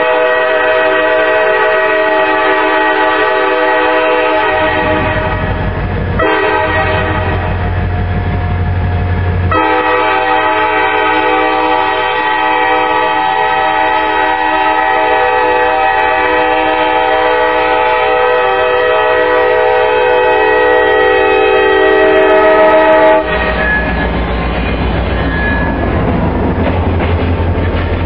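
EMD SD40-2 diesel locomotive's multi-chime air horn blowing for a grade crossing. It sounds one long blast of about six seconds and, after a break of about three seconds, a second blast of about thirteen seconds that grows louder and cuts off abruptly. The locomotive's diesel engine and wheels then rumble past close by.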